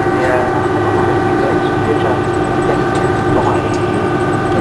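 Cabin sound of an Airbus A330-223 taxiing after landing, with its Pratt & Whitney PW4000 engines at idle. It is a steady rumble with several steady whining tones.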